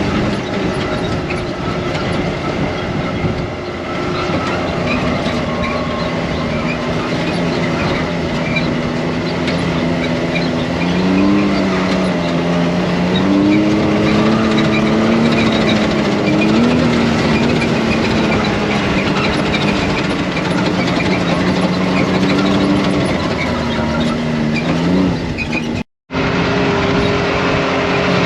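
ATV engine running under way, its pitch rising and falling with the throttle, over a loud rough rush of riding noise. The sound cuts out abruptly for an instant near the end.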